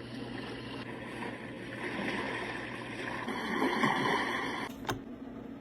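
Desk lamp's built-in white-noise speaker playing a steady rushing, water-like noise. A single sharp click comes about five seconds in, after which the noise turns duller and steadier.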